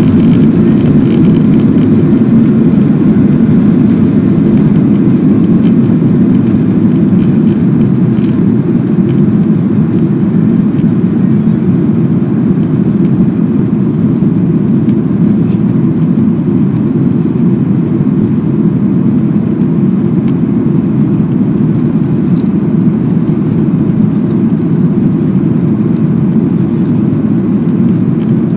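Loud, steady cabin noise of a Boeing 737's jet engines at takeoff power, heard from a seat over the wing as the airliner finishes its takeoff roll, lifts off and climbs. The sound is a deep, even rush that eases off slightly towards the end.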